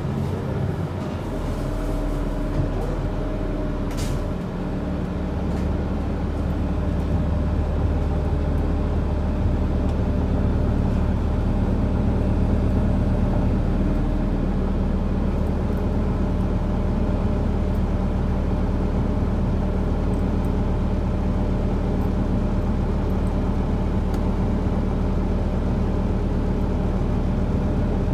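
A 2021 Gillig BRT bus's Cummins L9 diesel engine, heard from inside the cabin as the bus comes to a stop and then idles steadily. There is one short sharp click about four seconds in.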